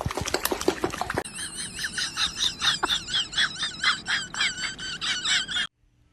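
A quick run of short, high, warbling squeaks or chirps from an animal, many in succession, cut off abruptly near the end.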